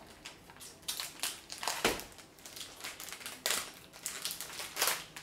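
Snack packet wrappers crinkling and tearing as they are opened by hand, in irregular crackles with a few louder rips.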